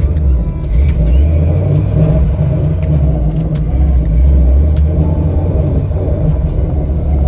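Fox-body Ford Mustang engine running as the car is driven slowly, with small rises and falls in throttle.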